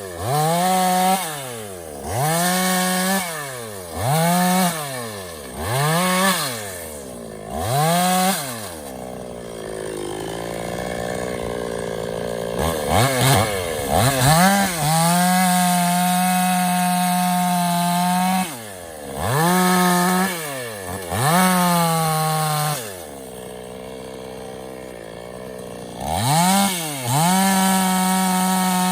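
Petrol Stihl two-stroke chainsaw being revved: the throttle is blipped about every second and a half, the engine screaming up and falling back to idle each time. Later it is held at full revs for a few seconds at a time, dropping back to a lower idle between.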